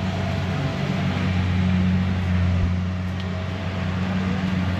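An engine running steadily at one speed, an even low drone.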